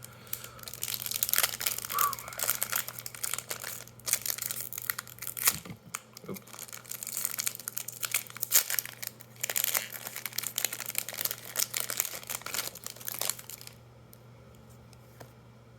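Foil booster pack wrapper being torn open and crinkled by hand, a dense crackling that stops about two seconds before the end.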